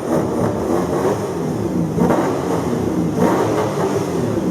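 Mercedes-AMG C63 V8 running loud through an iPE valved exhaust, blipped up in two short revs about two and three seconds in.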